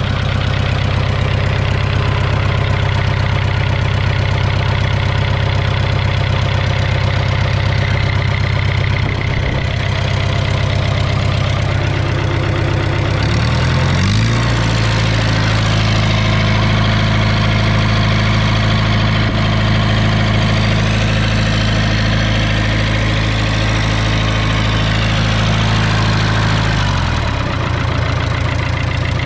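Fiat crawler tractor's four-cylinder diesel engine idling. About 14 seconds in it is throttled up to a steady higher speed, then drops back to idle near the end.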